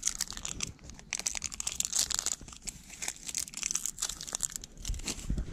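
An RX bar's plastic wrapper being torn open and crinkled in the hands: a dense, irregular run of crackles, with a few low bumps near the end.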